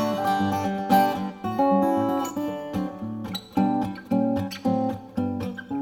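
Background music: an acoustic guitar playing plucked and strummed chords.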